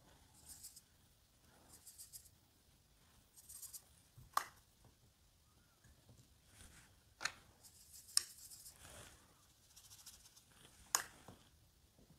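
Faint, short scratchy swishes of a watercolour brush working paint in the palette and onto paper, with four sharp little clicks spread through the stretch.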